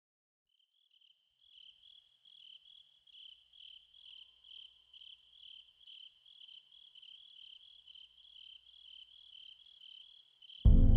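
Crickets chirping in a steady rhythm, about two to three high-pitched chirps a second. Near the end, loud low music cuts in suddenly.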